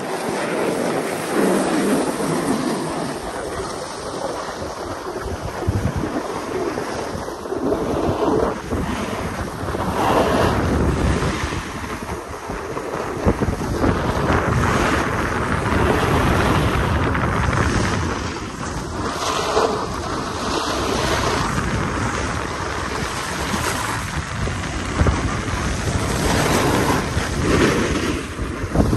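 Wind buffeting the microphone at riding speed, over the hiss and scrape of snowboard edges on groomed snow. The rush swells and eases every few seconds.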